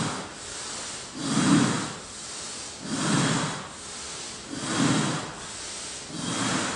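A man breathing hard and rhythmically into a handheld microphone, heard over a PA: a loud, blowing breath about every second and a half with quieter breath between, leading a group breathing exercise.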